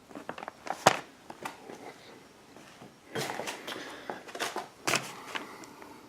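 Irregular handling noise: scattered light clicks, knocks and rustles, with sharper knocks about a second in and again near five seconds.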